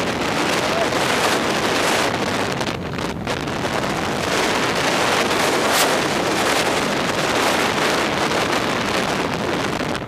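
Paraglider in a steep spiral dive: the fast airflow rushes loudly and steadily over the microphone, then drops away sharply at the end.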